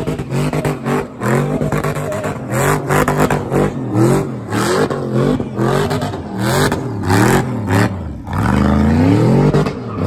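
Engine of a V8 burnout car revved hard while its tyres spin in smoke. The revs swing up and down about once a second, then make a longer climb near the end.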